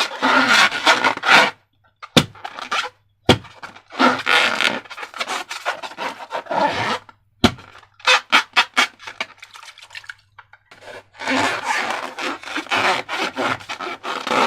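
Slime worked by hand in bursts: a sticky crackling made of many small clicks, broken by several short pauses, with two sharp single clicks in the first pause.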